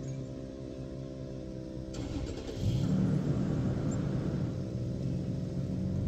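An engine running steadily, then throttled up about two and a half seconds in: its pitch rises and it settles into a louder, steady higher-speed run.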